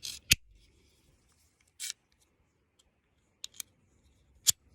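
Handling of a Taurus TX22 .22 pistol magazine with a nose-dived round: a few sharp clicks, a quick double click and a short scrape.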